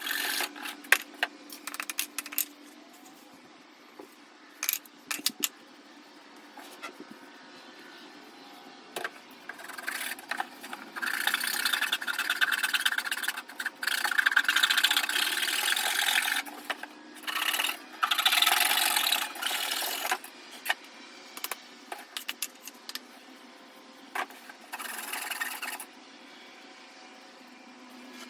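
Cardboard being worked by hand: several stretches of rasping, sawing or scraping a few seconds long, with scattered clicks and taps in between.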